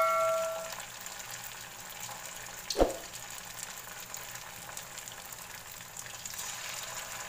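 Tofu fritters deep-frying in hot oil in a wok, a steady sizzle. A metal spoon's clang against the wok rings and fades out at the start, and a single knock sounds about three seconds in.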